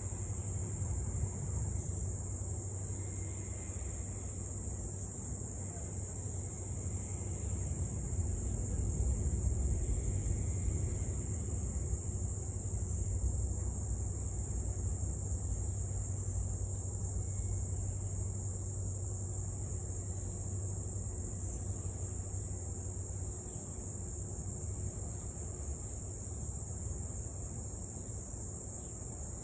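Steady high-pitched chorus of summer insects, unbroken throughout, over a low steady rumble; no dog barking or howling is heard.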